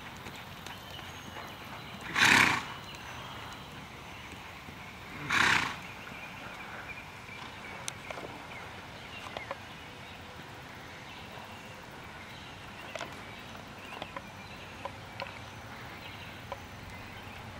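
A horse snorts twice, about three seconds apart: each is a short, loud, breathy blow through the nostrils. Faint hoofbeats on sand come between and after.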